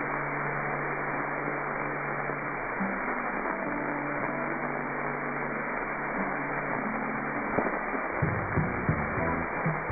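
Steady rushing hiss over the helicopter's intercom and radio audio feed, narrow and thin in tone with a faint low hum, opening just before and running on with no one talking. About eight seconds in, music joins over the same feed.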